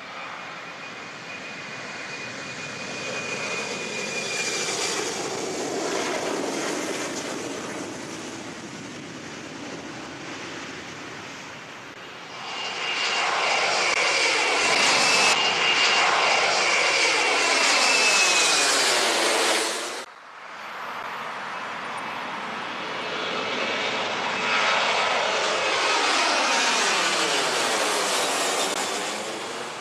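Twin-turbofan jet airliner, an Embraer E190, climbing out at takeoff power low overhead: the engine noise swells to a loud rumble with a high fan whine, and its pitch sweeps as the jet passes. The sound cuts off abruptly about twenty seconds in, and a second stretch of jet noise swells and fades.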